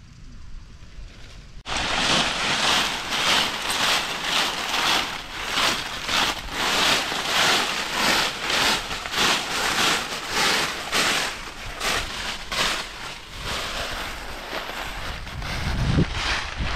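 A broom of green twigs sweeping dry fallen leaves, a rustling swish with each stroke, about two strokes a second, starting a couple of seconds in.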